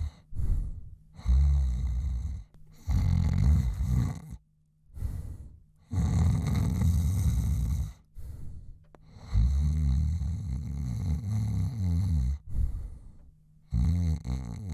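A man snoring: several long, low snores of one to three seconds each, alternating with quieter breaths in between.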